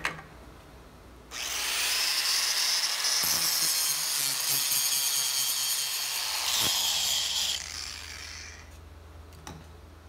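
Angle grinder with a cut-off wheel cutting into a cast-iron lathe shift fork: a high whine over a grinding hiss that starts abruptly about a second in, runs for about six seconds, then winds down. The cut removes the broken ear area so a steel replacement can be brazed on. A short knock comes right at the start.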